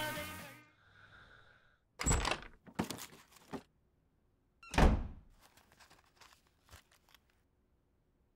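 Music fades out at the start, then a wooden door knocks and thuds a few times, the loudest thud about five seconds in, followed by several light clicks and taps.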